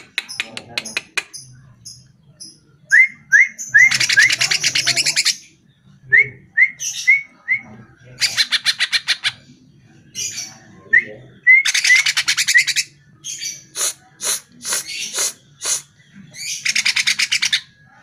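A greater green leafbird (cucak ijo) singing loudly. Rapid chattering trills about a second long alternate with quick sets of three or four short upslurred whistles, and a run of sharp single notes comes late on.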